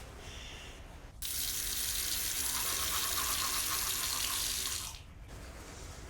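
Water running from a tap into a sink: turned on about a second in, running steadily for about four seconds, then shut off.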